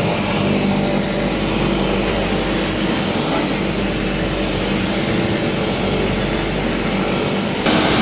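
de Havilland Canada DHC-6 Twin Otter's PT6A turboprop engines running steadily, heard from inside the cabin, with a steady high whine over the propeller drone. Near the end the sound jumps louder.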